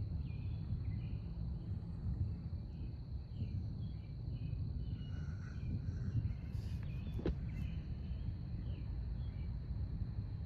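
Outdoor ambience: a steady low rumble with a constant high insect drone and scattered short insect or bird chirps over it, and one brief tick about seven seconds in. No thunder.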